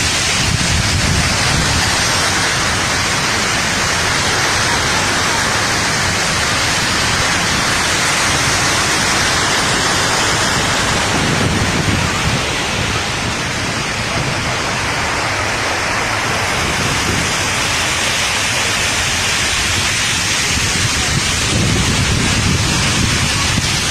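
Mallalli Falls roaring steadily: a loud, unbroken rush of falling water.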